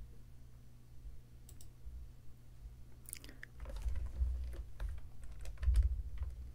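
Scattered clicks and taps from computer mouse and keyboard use, thickening into a cluster of sharp clicks with low thumps from about three seconds in, over a steady low hum.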